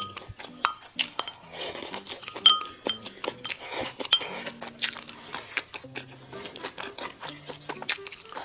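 Eating utensils clicking and clinking against a dish, several strikes ringing briefly, while food is scooped up. Soft background music with slow low notes plays under it.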